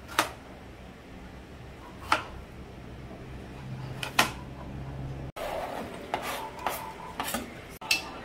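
Kitchen knife slicing carrots on a plastic cutting board, three sharp taps about two seconds apart. About five seconds in, this gives way to a metal spoon stirring and clinking in a metal pot of vegetables.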